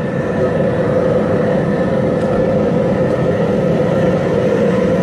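Steady roar of a propane burner under a big boiling crawfish pot.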